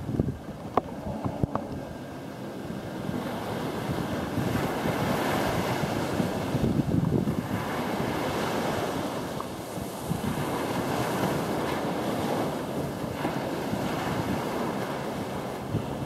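Ocean surf washing onto a sandy beach, swelling and easing in slow waves, with wind buffeting the microphone.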